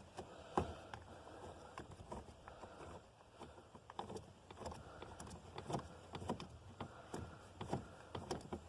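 Faint, irregular clicks and light metal knocks of a truck jack being raised by hand so it wedges tight in its storage bracket.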